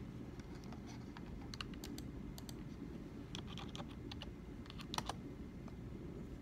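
Typing on a computer keyboard: irregular keystroke clicks, one louder key hit about five seconds in, over a steady low room hum.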